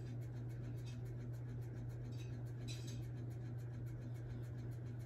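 A few faint scratchy strokes of a makeup brush working powder, over a steady low hum.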